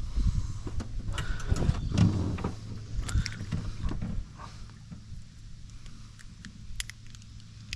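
Knocks and bumps against a small fishing boat, over a steady low hum. The knocking dies down about four seconds in, leaving a few light clicks.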